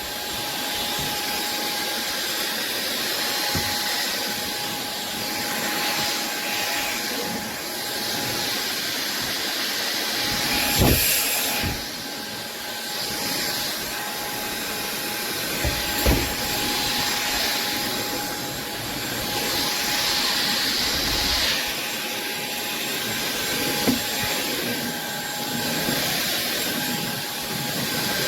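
Cordless stick vacuum cleaner running steadily with a high whine and airy hiss, its sound swelling and dipping as it is pushed back and forth over a wooden floor, sucking up dog hair. A few sharp knocks now and then as the head bumps along.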